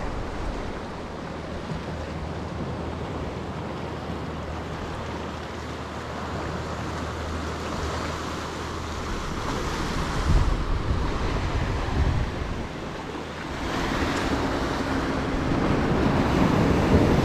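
Sea surf washing against a rocky shore, with wind on the microphone and a faint low steady hum beneath. The surf gets louder from about three-quarters of the way in, as waves break and foam at the rock's edge.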